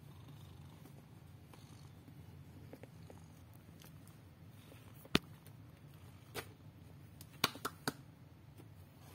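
Domestic cat purring steadily, close up. A few sharp clicks cut through, one about five seconds in and a quick cluster near seven and a half seconds.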